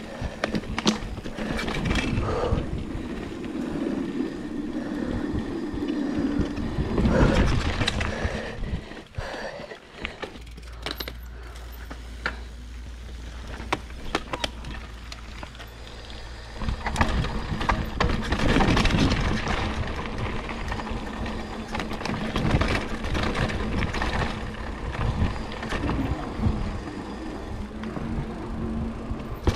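Mountain bike ridden over forest singletrack: tyres rolling over dirt, rock slab and wooden boardwalk, with frequent clicks and knocks as the bike rattles over bumps.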